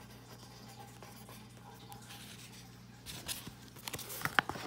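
Pen writing on notebook paper, a faint scratching. About three seconds in come a few sharp clicks and taps as the notebook is handled.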